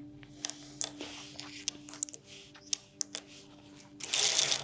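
Small letter tiles clicking against each other and the table as fingers move through them, with a louder clatter of tiles being swept and shuffled across the tabletop near the end.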